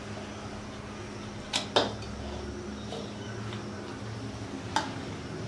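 Steel spoon clinking and scraping against a stainless steel bowl while mixing cooked rice: two sharp clinks about a second and a half in and another near the end, over a steady low hum.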